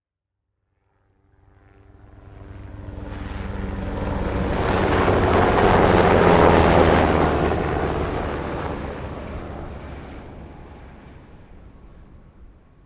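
Helicopter making a fast pass-by: it approaches from about a second in, is loudest around six seconds in, then fades away as it recedes.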